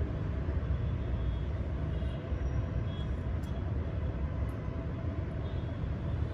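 Steady low background rumble of outdoor noise, with a few faint ticks.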